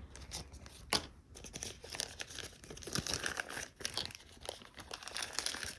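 Thin plastic bag crinkling and rustling in irregular spurts as it is handled, with a sharp click just under a second in.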